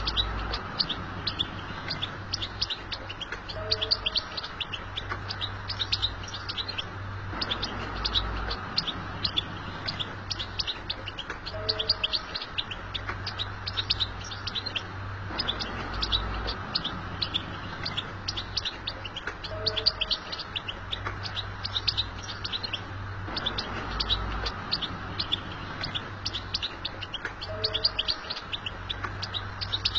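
European goldfinch giving its rapid twittering 'bitbita' chirps in quick runs of high notes. The same stretch of about eight seconds repeats over and over, as a looped recording does.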